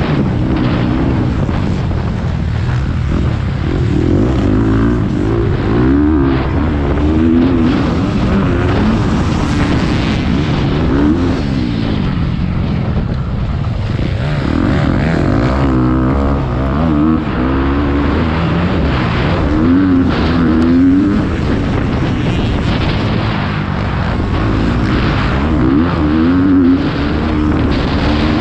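Motocross bike engine revving up and dropping off again and again as it is ridden hard around the track.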